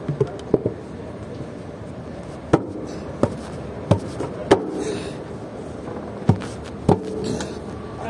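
Sharp metallic clinks and knocks from a wrench working on the steel hydraulic fittings and filter housing of a concrete pump. There are about eight irregular strikes, spread unevenly.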